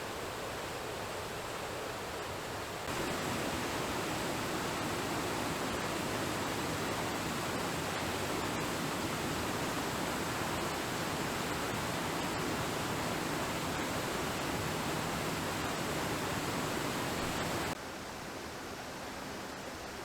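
Steady rush of water from a small creek waterfall in winter, an even noise that jumps louder and fuller about three seconds in and drops back abruptly near the end.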